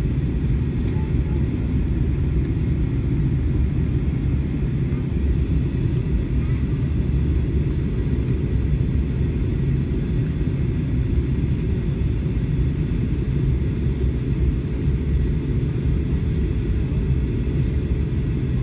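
Steady low rumble of an Airbus A321 airliner in flight, heard from inside the passenger cabin during its descent.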